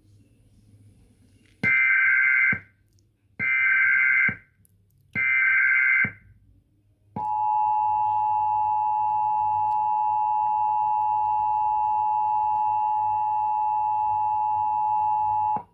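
Emergency Alert System test broadcast: three roughly one-second bursts of SAME digital header data tones, followed by the EAS two-tone attention signal, a steady dual tone of 853 and 960 Hz held for about eight seconds that cuts off abruptly.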